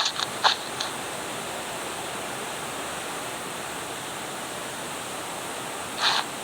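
Heavy rain making a steady, even hiss. A few short louder bursts of sharper sound come during the first second and once more near the end.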